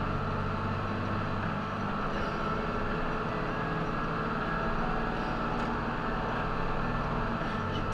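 Steady engine and road noise of a delivery truck driving in traffic, heard from inside the cab.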